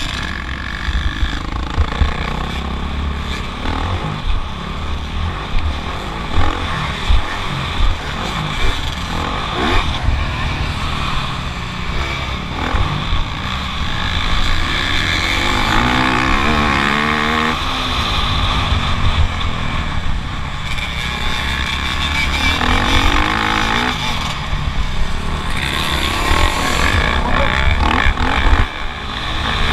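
Motocross bike engine revving up and down as it races, heard onboard over heavy wind rumble, with sharp knocks throughout.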